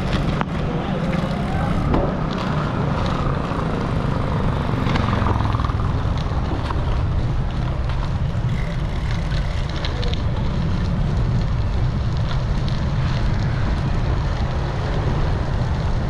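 Steady low rumble of wind buffeting a bike-mounted action camera's microphone while riding, with road and tyre noise underneath.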